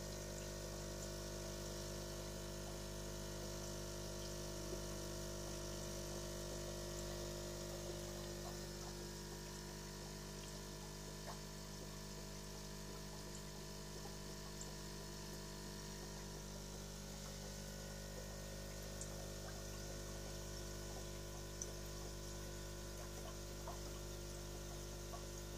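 Aquarium filter pump humming steadily while water trickles and splashes gently at the surface.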